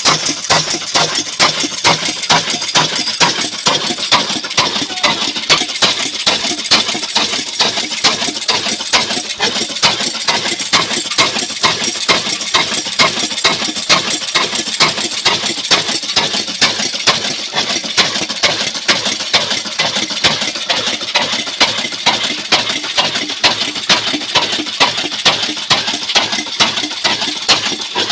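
Old black Ruston Hornsby-type diesel engine running steadily, with an even, regular beat of firing strokes.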